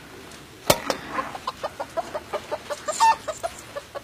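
A hen clucking in a quick run of short calls, about five a second, after a single sharp knock about two-thirds of a second in.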